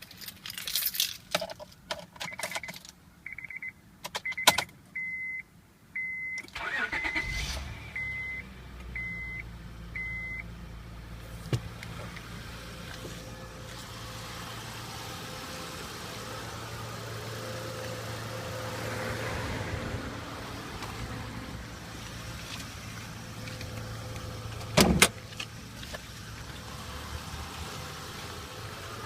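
Key and interior clicks with a car chime beeping about once a second, then the 2005 Honda Accord EX's 3.0-litre V6 cranks and catches about seven seconds in and settles into a steady cold idle. The idle carries an engine noise that the owner suspects is piston slap; a single sharp knock sounds near the end.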